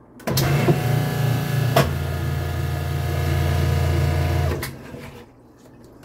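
Kenmore top-load washing machine's motor running with a loud, steady hum as the machine is set to spin. About two seconds in a click is heard and a deeper drone joins. It all stops fairly suddenly a little past halfway, at a point when the owner doubts the washer will spin.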